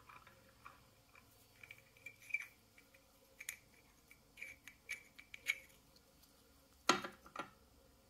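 Small brass-and-plastic boiler flow regulator cartridges being handled: scattered light clicks and scrapes, with one louder sharp knock about seven seconds in.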